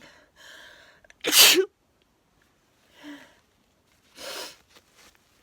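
A woman's single loud sneeze, 'achoo', about a second and a half in, one of a long run of sneezes she has set off on purpose. Softer breathy noises come just before it and twice more later.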